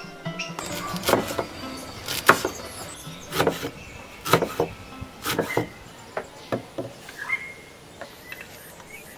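Large kitchen knife chopping beetroot leaves on a wooden cutting board: sharp chops, often in quick pairs, about once a second, dying away near the end.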